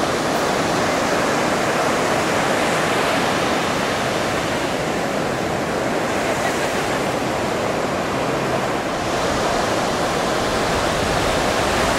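Ocean surf breaking and washing up the beach: a steady, continuous rush.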